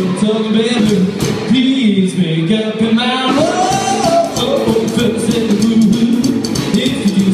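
Rockabilly trio playing live: electric guitar, upright double bass and drum kit, with a male lead vocal.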